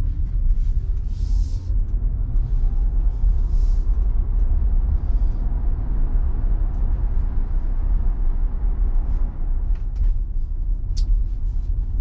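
Steady low rumble of road and wind noise from a Tesla Model Y, an electric car, as it pulls onto a highway and gathers speed.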